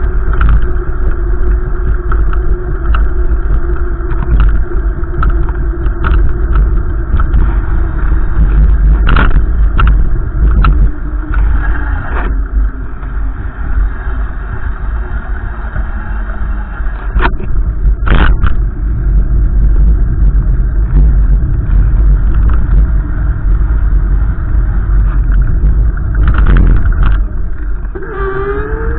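Strong wind buffeting the microphone in a steady, heavy rumble, with a motor vehicle's engine tone underneath that slowly falls, then rises briefly near the end.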